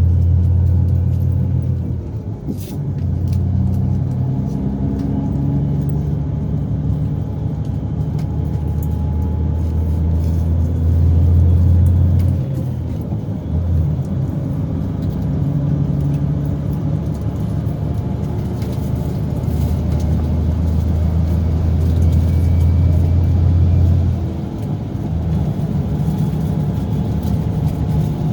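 Scania K410B coach's 13-litre straight-six diesel engine running with a deep, steady drone. Its sound drops away briefly three times, about two, twelve and twenty-four seconds in.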